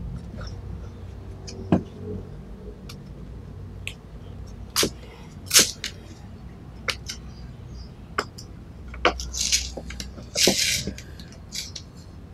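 Masking tape being peeled slowly off a painted cap brim and crinkling in the hand: scattered clicks and short crackling, rustling bursts, the loudest about five and a half seconds in and again around ten seconds in.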